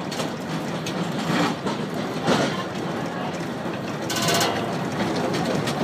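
Narrow-gauge electric train rolling slowly at moderate level, its wheels clacking a few times over the points of a passing loop, with a brief high-pitched rattle about four seconds in.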